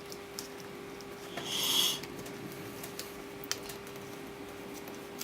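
Quiet handling of laptop parts: a few faint clicks and taps, with one brief hissing rush about one and a half seconds in, over a steady low hum.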